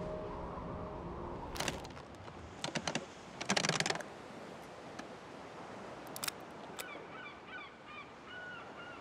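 A few sharp clicks and a brief rattle in the first half, then a series of short, faint bird calls from about three-quarters of the way in.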